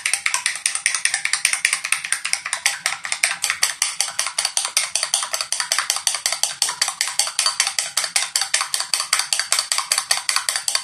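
An egg being beaten by hand in a china bowl: the utensil clicks against the bowl's ceramic sides in a rapid, even rhythm of several strokes a second.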